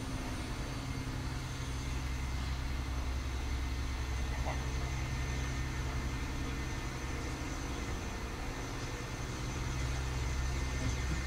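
A steady low machine hum with a faint, even high whine above it, unchanging throughout, like an engine idling.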